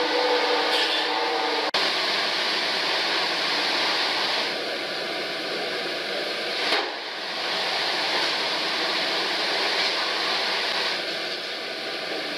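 Steady machinery noise of a fishing boat's fish-processing deck, a continuous loud hiss with faint steady tones, briefly cutting out just under two seconds in and dipping again near seven seconds.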